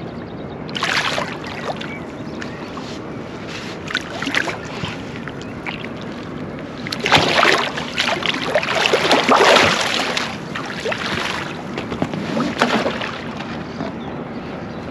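Large wels catfish splashing at the surface against the side of an inflatable boat as it is brought alongside to be landed. The splashing comes in several bouts, the longest and loudest from about seven to ten seconds in, over a steady wash of water noise.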